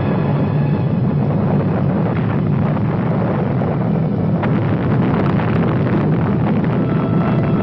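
Loud, steady rumbling noise of a large engine running.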